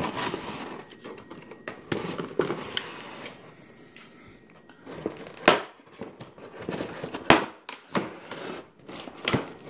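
Clear plastic blister packaging being handled and pried open: irregular crinkling and crackling of thin plastic with a few sharp clicks, two loud snaps about halfway through and a couple of seconds later.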